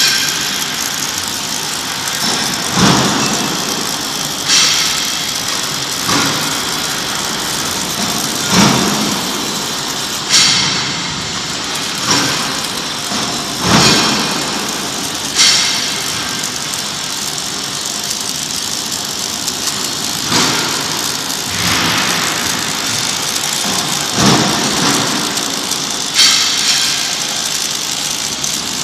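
Robotic MIG welding arc crackling and hissing steadily while it throws spatter, with sharp louder surges every second or two.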